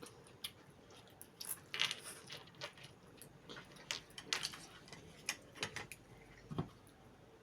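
Irregular string of clicks and clinks of cutlery against a plate during eating.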